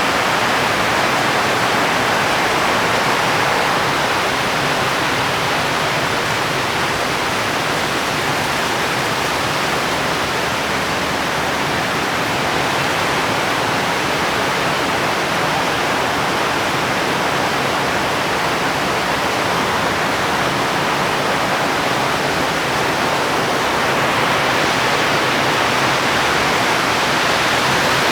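Steady, heavy rainfall as an even hiss, growing a little brighter near the end.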